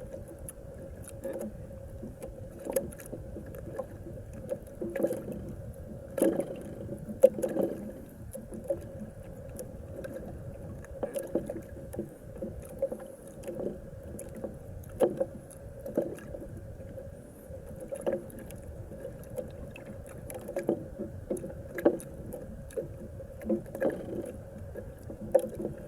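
Close-up eating sounds of someone chewing squid: irregular mouth clicks and smacks scattered throughout, over a steady low background hum.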